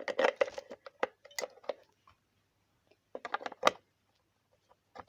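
Batteries clattering and clicking into the plastic battery compartment of a toy kettle: a run of small clicks and rattles, then a shorter cluster of sharp clicks about three seconds in.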